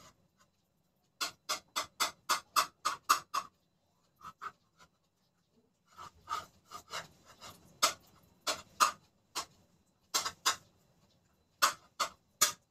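Metal spoon clinking against a plate while a baby eats: a quick run of about eight sharp clinks, then scattered clinks with a little scraping, and a few more near the end.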